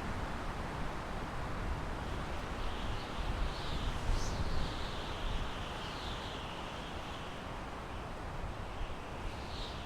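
Wind rushing steadily through pine trees, with a gusty low rumble underneath. A few faint high bird chirps come through a few seconds in and again near the end.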